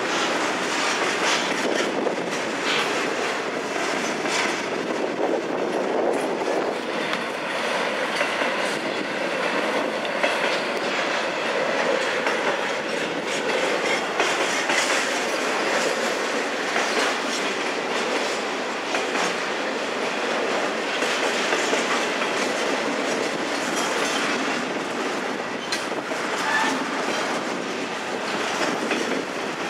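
Double-stack intermodal freight train's well cars rolling past at speed: a steady rumble of steel wheels on rail, with a continual clattering clickety-clack.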